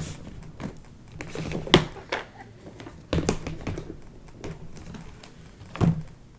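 Light clicks, knocks and rustling as plastic floss bobbins and storage boxes are handled, with sharper knocks a little under two seconds in, at about three seconds, and near the end.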